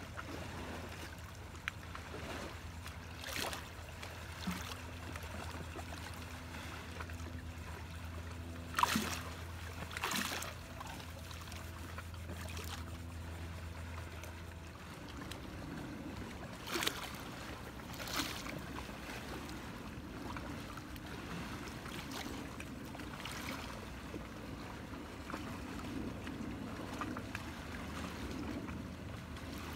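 Lake water lapping against shoreline rocks, with a steady wash and a few short sharp knocks, the loudest about a third of the way through. A low steady hum runs underneath and stops about halfway.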